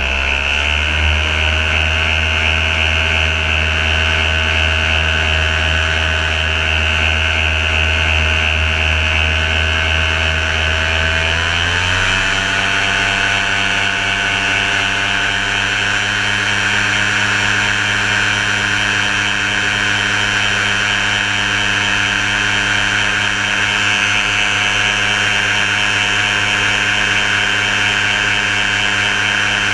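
Paramotor engine running steadily in flight, with a constant hiss of air. Its note steps up in pitch about twelve seconds in and then holds.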